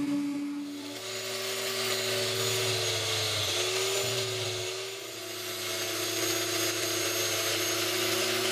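Angle grinder with a polishing disc running against the etched steel of an axe head: a steady motor whine with a hiss, dipping briefly in pitch about three and a half seconds in and again near five seconds as the disc is pressed to the metal. A different, higher motor tone sounds in the first second.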